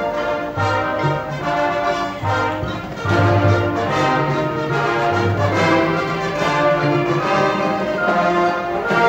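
Marching band playing a full, brass-led passage: sustained chords over repeated low bass notes, getting louder about three seconds in.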